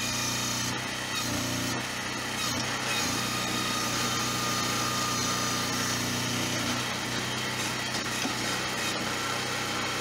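Small engine of a homemade backhoe running steadily while the arm and bucket are worked, its sound shifting a few times as the hydraulics take load.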